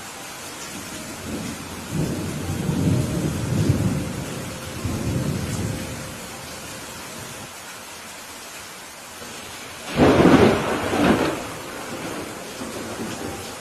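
Steady rain with thunder: a low rolling rumble from about a second and a half in until about six seconds, then a louder, sharper thunderclap about ten seconds in that rolls for over a second.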